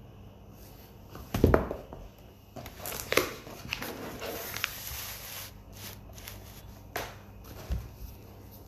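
Handling noise from a phone close to its microphone: a few knocks and thumps, the loudest about one and a half seconds in, with rustling in between.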